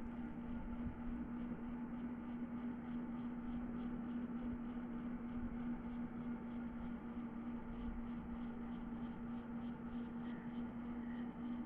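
Steady mechanical hum with a constant background hiss, as from a small motor or appliance running, with a faint regular pulsing a few times a second.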